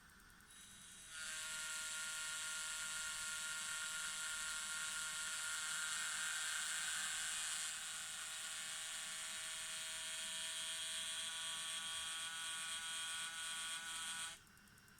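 Cooling fan inside a Xiaomi Mi Drone 4K camera humming with a steady high whine of several tones. It starts about a second in and cuts off suddenly near the end.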